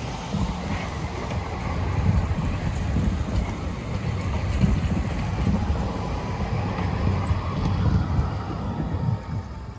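Long multi-section tram passing close by on snow-covered rails: a steady rumble of wheels and running gear, with a faint steady whine that slides slightly down in pitch near the end. Wind buffets the microphone.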